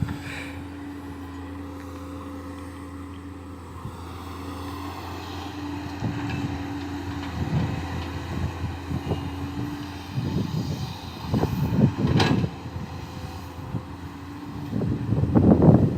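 JCB 3DX backhoe loader's diesel engine running steadily, surging several times under load, with a sharp knock about twelve seconds in.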